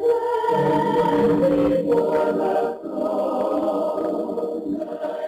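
A choir singing slow, held chords, several voices sounding together with a brief dip between phrases near the middle.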